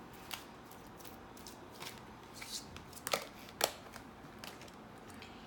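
Clear slime being handled and pressed in the hands, giving a few scattered sticky clicks and pops, the sharpest about three seconds in and again half a second later.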